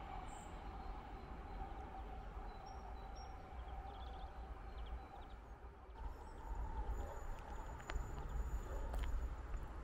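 Faint outdoor ambience at a railway station: a low rumble with a steady hum, a few short high chirps about three seconds in, and the sound growing louder in the second half, with two sharp clicks near the end.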